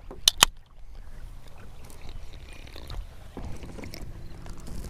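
Low rumble aboard a bass boat, with two sharp clicks about half a second in. A faint steady hum joins the rumble in the last second and a half.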